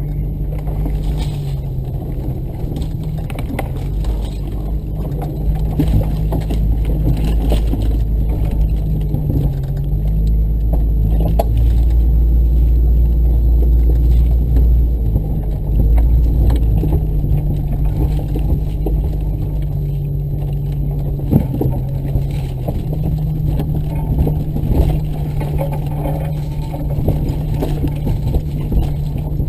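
Motor vehicle engine running, a loud low rumble whose pitch steps down and up a few times as the engine speed changes, with a few sharp knocks and rattles, the loudest about two thirds of the way in.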